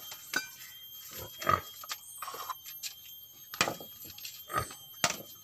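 Bolo knife chopping and shaving at a wooden pole: a series of irregular sharp knocks, with a longer scrape about two seconds in.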